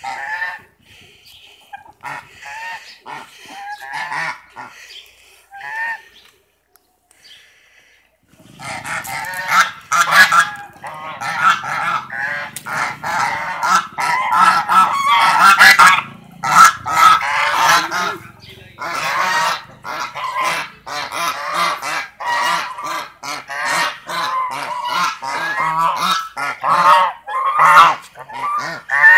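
White domestic geese honking: a few scattered calls at first, then, after a short lull about eight seconds in, a dense chorus of overlapping honks.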